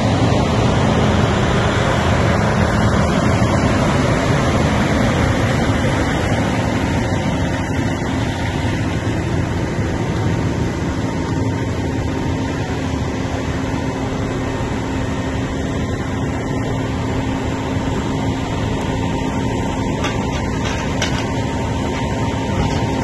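Heavy diesel engines running steadily: a semi tractor pulling a lowboy trailer drives past, loudest in the first few seconds, with a mobile crane's engine running throughout.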